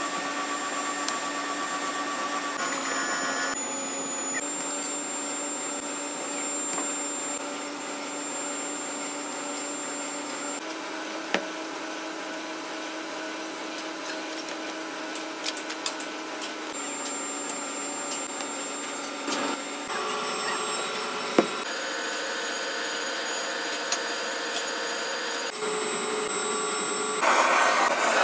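Steady whirring machine drone with a faint high whine, its pitch changing abruptly several times. A few sharp clicks, and a louder rushing noise about a second before the end.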